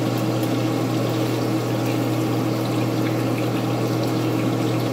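Beef patties sizzling in olive oil in a frying pan, over a steady low hum.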